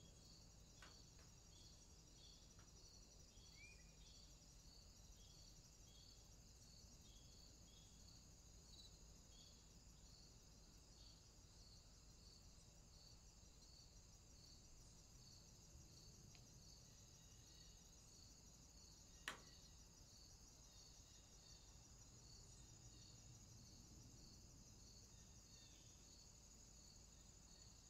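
Near silence with faint insects: a steady high trill and a regular, evenly repeating chirp underneath it. A single sharp click comes about two-thirds of the way through.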